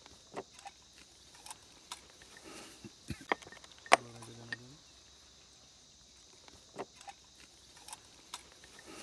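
Scattered clicks and taps of small plastic and glass items being handled: syringes and medicine vials taken from a plastic box, with the sharpest click about four seconds in. A steady high insect drone lies underneath, and a brief low hum of a man's voice comes just after the loudest click.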